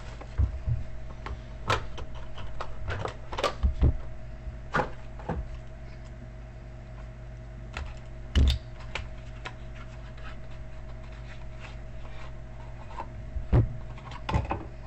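Irregular light clicks and taps from objects handled on a desk, one heavier knock about halfway through, over a steady electrical hum.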